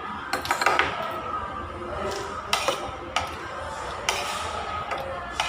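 Cutlery clinking against a plate during a meal: a quick run of clinks about half a second in, then single clinks every second or so.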